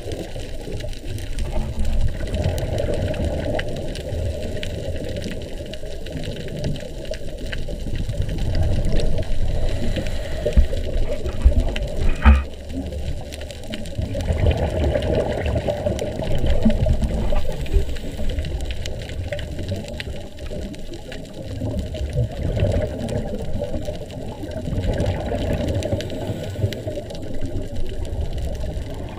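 Scuba breathing through a regulator heard underwater in a GoPro housing: exhaled bubbles rumbling and gurgling in surges every few seconds. A sharp knock about twelve seconds in.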